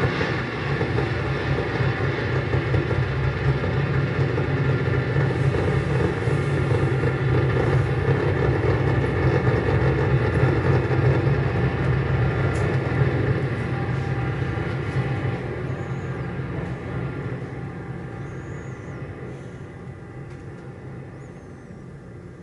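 Experimental electronic noise music from modular synthesizers and mixers: a dense rumbling drone with a heavy low hum and hiss. It fades down gradually over the second half, with a few faint high chirps near the end.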